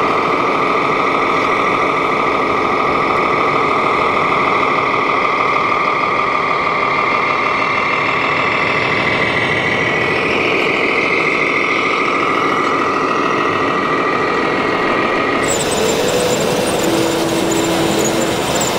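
RC Volvo cement mixer truck running: a steady mechanical hum with a high, even whine over the noise of a busy hall. The whine cuts off suddenly about 15 seconds in, leaving only a rougher background din.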